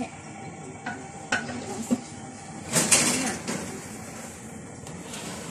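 Metal baking tray knocking and scraping against the oven rack as it is slid into the oven, with a few light clanks and one longer, louder scrape near the middle.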